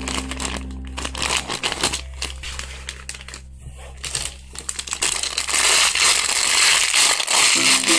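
Plastic crinkling and crackling as squishy toys in their wrappers are handled, getting louder and denser about five seconds in.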